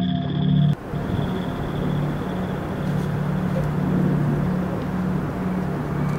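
Background music cuts off abruptly just under a second in. After it comes steady city street ambience with a constant low hum.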